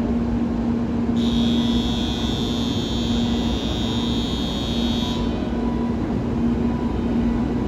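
Railway platform buzzer sounding one steady, high electric tone for about four seconds, starting about a second in and cutting off sharply. Under it runs a steady low hum.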